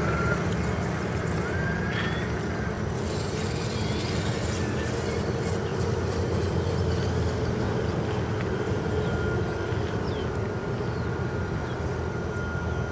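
Electric motors and gearboxes of scale RC crawler trucks whining faintly as they climb a dirt mound, over a steady low rumble; the whine comes in as a thin steady tone about two thirds of the way in.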